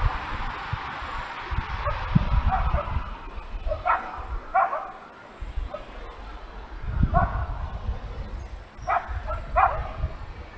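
A dog barking in the distance: short barks in ones and twos a second or two apart, over a low rumble.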